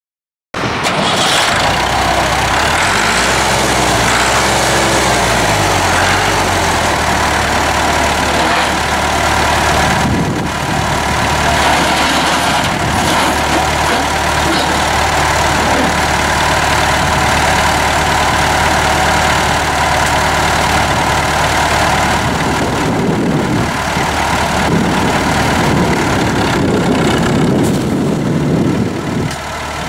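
A 1965 Massey Ferguson 165 tractor engine running. Its pitch changes several times in the first few seconds, then it runs steadily. From about twenty seconds in the sound varies as the tractor moves off.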